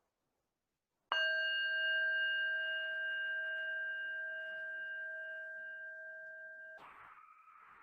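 A single strike on a bell-like metal instrument rings out with a clear, layered tone. It fades slowly for about six seconds and then stops abruptly.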